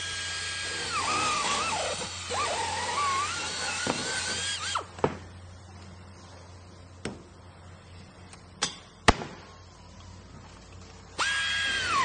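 Electric drill running with a high whine whose pitch sags and recovers as the bit bites under load. It stops about five seconds in, leaving a quieter stretch with a few sharp knocks, then starts up again abruptly near the end.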